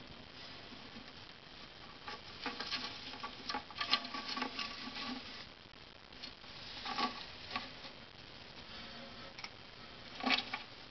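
House mouse scrabbling and rustling around her nest while carrying her newborn pups: clusters of quick, light, scratchy pattering. They come about two seconds in, again around seven seconds, and in one short burst near the end.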